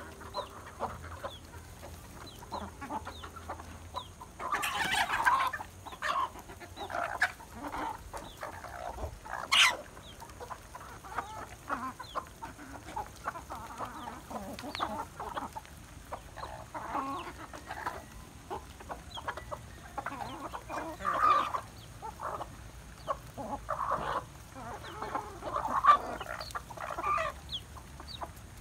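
A flock of domestic chickens clucking as they peck at feed: a steady run of short calls, with a few louder bursts of calling. There is one sharp click about a third of the way through.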